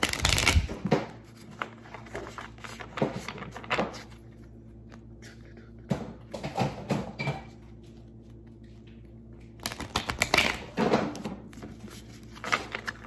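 A deck of Moonology oracle cards being shuffled and handled on a stone countertop: a riffle shuffle right at the start, then several short bursts of card clicks, flicks and taps as the deck is worked and squared.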